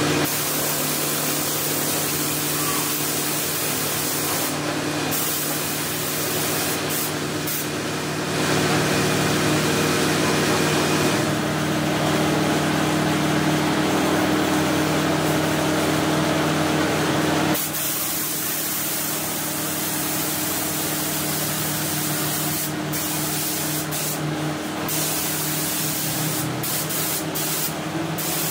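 Paint spray gun hissing steadily as it lays red paint onto a car's body panel, with a steady hum underneath. The hiss grows louder about a third of the way in and drops back a little past the middle.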